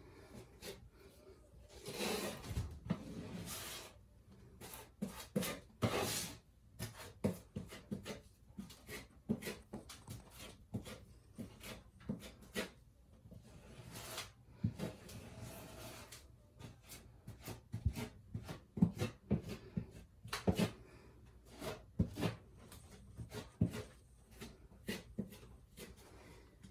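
Putty knife scraping and spreading spackling compound over drywall tape, with irregular short scrapes and taps of the blade and a few longer smoothing strokes.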